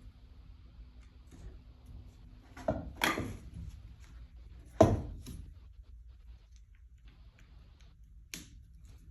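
A few short knocks and clicks of hard parts being handled during seat spring work, a cluster about three seconds in and the loudest knock about five seconds in, over a low steady hum.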